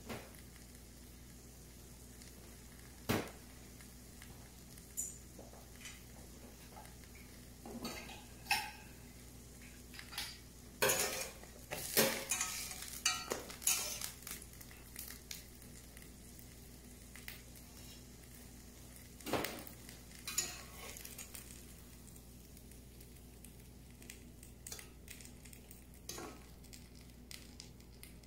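Metal slotted spatula scraping and clinking against a stainless steel frying pan as fried mushroom caps are lifted out, with scattered knocks and a dense run of scrapes about halfway through.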